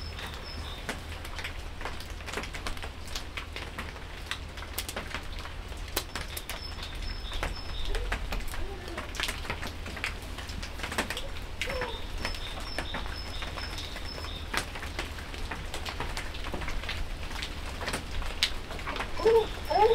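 Outdoor ambience of birds calling, with a repeated high chirp and low cooing calls that are loudest near the end. Underneath are scattered light ticks and rustles from a horn bow and its cloth wrapping being handled.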